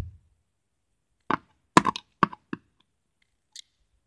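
Plastic figure clicking and knocking against its round plastic display stand as it is forced onto the stand's peg: about six short, sharp taps between one and four seconds in.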